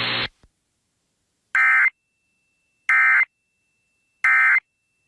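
Three short, identical bursts of Emergency Alert System SAME digital data tones, about a second and a half apart: the shrill warbling end-of-message signal that closes an EAS alert. A hiss cuts off just before them.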